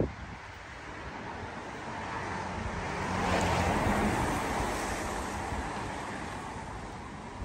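A car driving past on the wet road, its tyres hissing on the wet tarmac: the sound swells up, peaks about halfway through and fades away, with a faint engine hum at its loudest.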